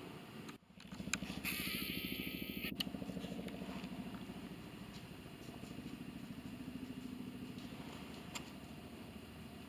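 A motor vehicle's engine running steadily with an even low pulse, after a brief dropout near the start. A short burst of hiss sounds over it about a second and a half in.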